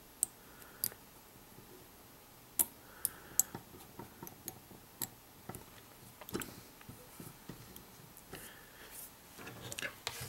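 Scattered light clicks and ticks from hands and a thread bobbin working at a fly-tying vise, wrapping thread over a rabbit-fur collar on the hook. The sharpest clicks come about a quarter of the way in.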